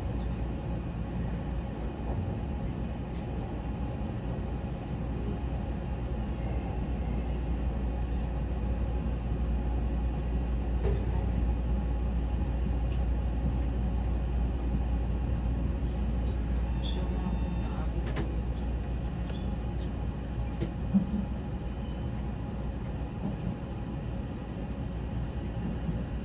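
Odakyu Romancecar limited express running at speed, heard from inside the front of the train: a steady low rumble of wheels on rail with faint clicks, and one short sharp knock late on.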